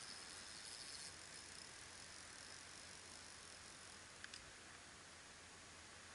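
Near silence: faint outdoor hiss, with a faint high steady tone in the first second and two light clicks about four seconds in.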